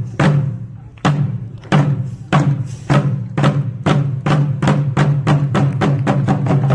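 Korean pungmul drum strokes, each with a low ringing body, starting widely spaced and speeding up steadily into a fast run of beats.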